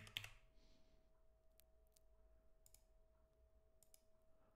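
Near silence with a few faint, short clicks from working a computer's mouse and keys, over a faint steady hum.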